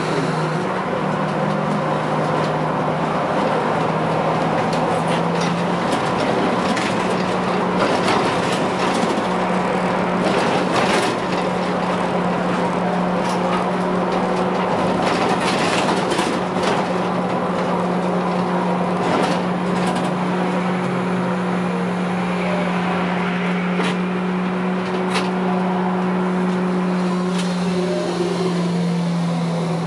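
Škoda 15TrM trolleybus in motion, heard from the cab: a steady low electric hum that shifts slightly in pitch near the start and near the end, over continuous road and tyre noise, with scattered clicks and rattles.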